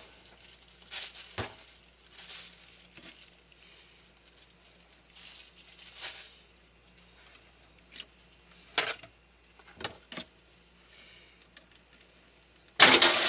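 Scattered soft rustles and wet clicks of hands pulling apart and cleaning raw Japanese flying squid. Near the end a kitchen tap starts running with a steady loud hiss.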